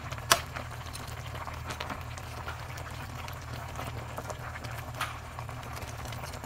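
Chicken pieces simmering in milk in a metal pan, a faint bubbling crackle over a steady low hum. Metal tongs click sharply against the pan just after the start and again about five seconds in.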